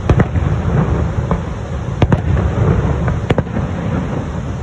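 Fireworks bursting overhead: a few sharp bangs, a pair right at the start, one about two seconds in and another just after three seconds, over a steady low rumble.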